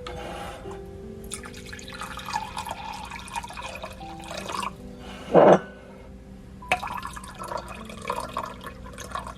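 Bottled water being poured for sourdough dough, splashing and trickling, over background music; one brief loud bump about five and a half seconds in.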